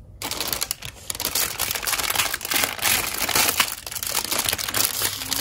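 Clear plastic packaging bags crinkling and rustling as the bagged plastic parts of a toy playset are grabbed and pulled about. The sound is a dense crackle that starts abruptly just after the beginning and goes on.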